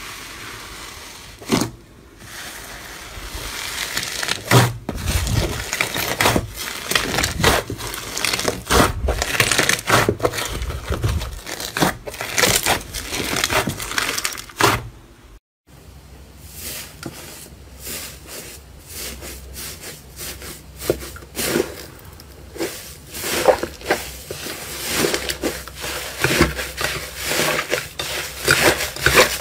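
Close-up crunching and crackling of a crunchy ASMR material, slime or soap, being squeezed and crushed by hand, in many quick cracks. There is a short gap about halfway through, and the crackling is a little quieter afterwards before building up again.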